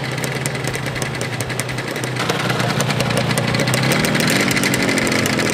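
Motorcycle engine running with a rapid, even exhaust beat. About two seconds in it gets louder, and the pitch then rises as it is revved.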